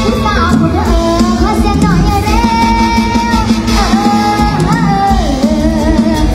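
A Thai mor lam song played live through a PA: a band with a steady bass, and a high voice singing the melody with wavering held notes.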